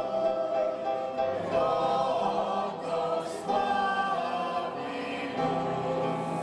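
Small mixed vocal group singing a Polish Christmas carol (kolęda) together.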